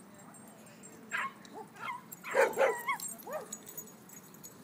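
Small dogs barking and yipping in short bursts, with a quick run of calls about a second in and the loudest pair of barks about two and a half seconds in.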